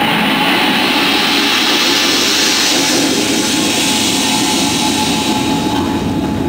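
Firework fountain burning with a long, steady rushing hiss that eases off slightly near the end.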